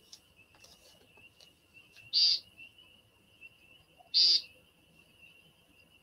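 American woodcock giving its "peent" call twice, each call short, about two seconds apart.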